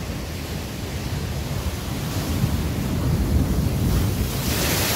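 Ocean surf washing against a rocky shore, building to a wave that crashes and sprays over the rocks about four seconds in.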